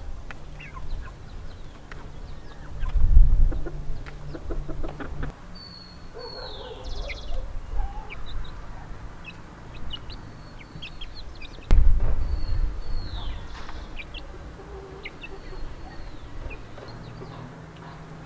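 Free-ranging chickens clucking, with young chicks giving high, falling peeps every few seconds and short clicks. Two louder low thumps come about three seconds in and near the middle.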